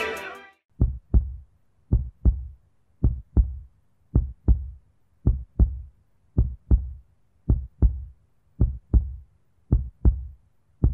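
Music fades out in the first half second, giving way to a heartbeat sound effect: steady pairs of deep thumps, about one pair a second, with silence between them.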